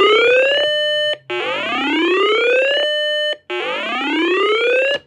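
Uniden BC365CRS scanner's weather-alert siren: a loud electronic whoop that climbs in pitch, holds its top note for a moment and cuts off, repeated about every two seconds, with a short low blip before each whoop. It signals a received weather warning.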